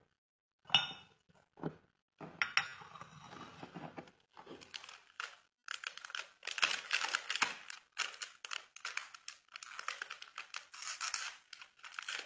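A ceramic cup clinking sharply on its saucer about a second in, then a small coffee sachet crinkling and tearing open, with dense crackly rustling through the second half.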